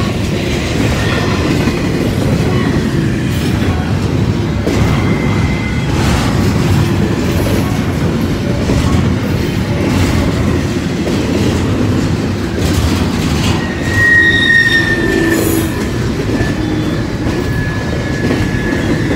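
Double-stack intermodal freight train passing close by: a steady, loud rumble of wheels and cars on the rails with occasional clanks. Thin, high wheel squeals come in briefly about six seconds in, and again more strongly in the last few seconds.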